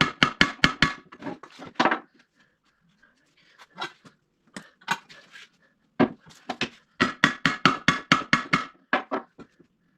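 Hammer rapping on steel in quick runs of sharp strikes, about six a second, with a few single knocks in between.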